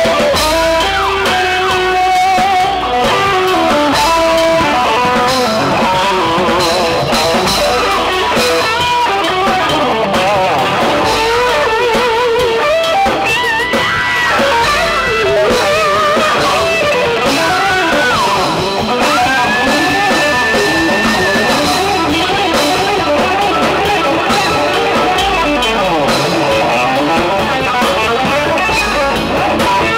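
Live band playing an instrumental passage: a Stratocaster-style electric guitar takes a lead line with wavering vibrato and bent notes over drums and cymbals.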